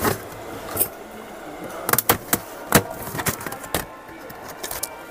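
A string of sharp plastic clicks and snaps from a Dell 3521 laptop's keyboard being pried loose from its retaining clips and lifted out of the palmrest. The clicks come thickest in the middle.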